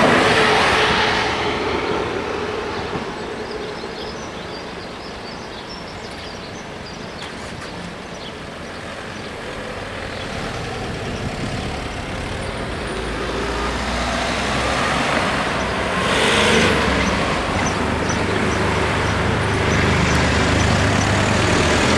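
An SNCF TER train's last carriage runs past and fades away over the first few seconds. After a quieter stretch, road traffic starts up again: cars and a camper van drive across the crossing with engines running, the level rising toward the end.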